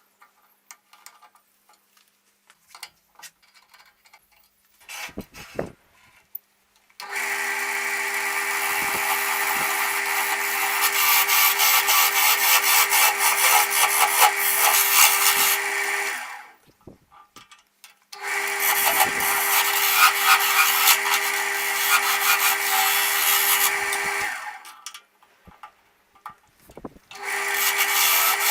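Wood lathe running with a steady hum while a tool works a birch blank, giving a dense scraping hiss. It runs in three long stretches, stopping briefly twice, after a few seconds of light clicks.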